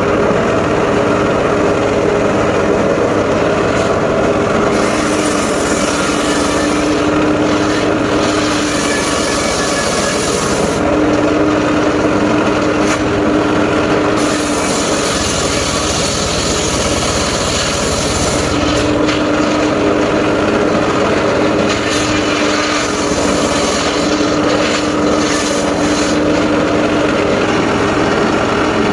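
Engine-driven circular sawmill running steadily, with a few long stretches of high hiss as the blade saws through a log.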